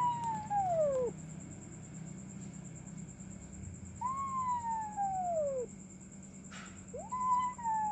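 Kitten meowing: three drawn-out meows about three seconds apart, each rising quickly and then sliding down in pitch.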